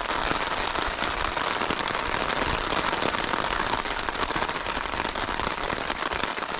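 Heavy rain falling steadily on a tent rain fly overhead: a dense, even hiss of countless small drop hits.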